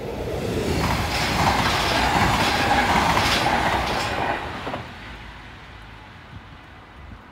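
NS double-deck electric passenger train passing over a level crossing, its wheels clattering on the rails. The sound swells over about a second, stays loud for about three seconds, then fades away about five seconds in.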